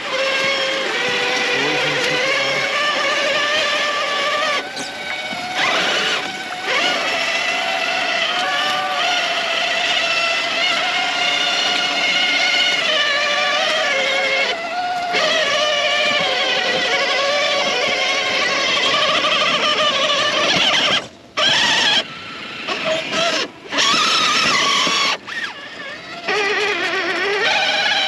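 Traxxas TRX-4 RC crawler's electric motor and geared drivetrain whining under throttle, its pitch wavering with speed. Near the end it cuts out and comes back several times as the throttle is let off and reapplied.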